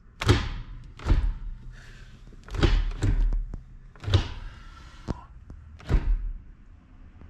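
A Fox-body Mustang's manual gear shifter being worked through the gears by hand, clunking into each gate: about seven separate knocks, roughly a second apart.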